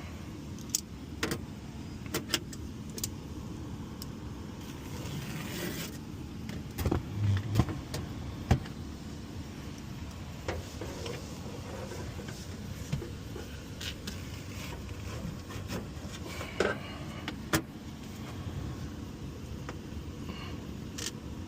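Steady running hum of the air-conditioning system, with scattered clicks, taps and knocks from hand work on the unit. A cluster of louder knocks comes about seven to eight and a half seconds in.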